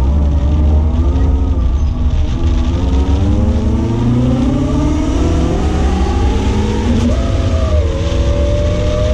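BMW E36 318is four-cylinder engine heard from inside the cabin under hard driving, its pitch falling, then climbing for several seconds, dipping briefly about seven seconds in and climbing steadily again, over a constant low rumble of road noise.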